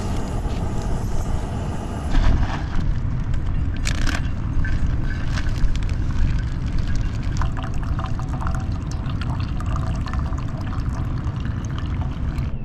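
Hot water poured from a metal camping pot into paper-filtered pour-over coffee drippers, a trickling stream that comes in about halfway through, over a steady low rumble.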